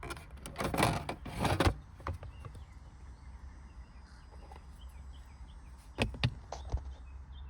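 Handling noises from a car's dashboard trim being taken apart: a rubbing, scraping stretch in the first two seconds, then a few sharp clicks about six seconds in.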